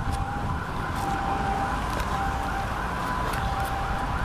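Two-tone emergency-vehicle siren switching back and forth between a high and a low note, over steady street traffic noise.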